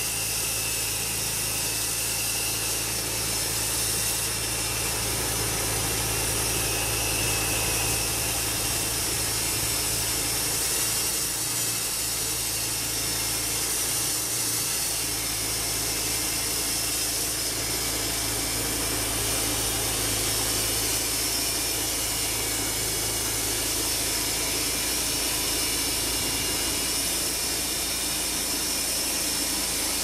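Homemade band sawmill running steadily, its band blade sawing lengthwise through a birch log under the even drone of the mill's drive motor.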